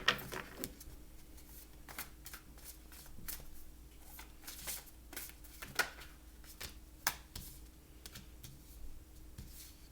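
A deck of tarot cards being shuffled by hand: a quiet run of irregular papery clicks and rustles, with a couple of sharper card snaps in the second half.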